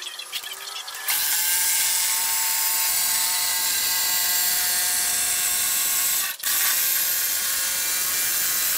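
Jigsaw cutting through steel sheet: a loud, steady rasping buzz that starts about a second in and briefly cuts out just after six seconds.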